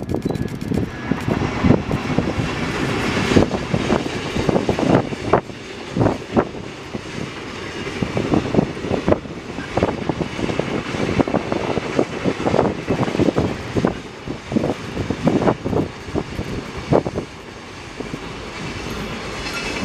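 A long container freight train rolling past. The wagons make a continuous rumble, with repeated clacks as the wheelsets pass over the rail joints.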